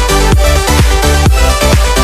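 Electronic dance music with a steady, fast beat.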